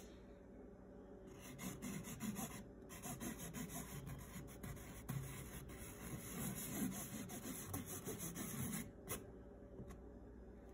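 Felt-tip marker scratching across stretched painting canvas as a signature is written in cursive, a run of quick rubbing strokes that starts about a second in, breaks off briefly near three seconds and stops near the end.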